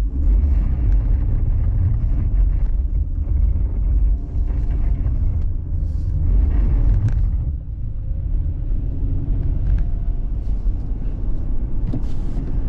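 Car driving on a snowy, icy road: a steady, loud low rumble of engine and tyres.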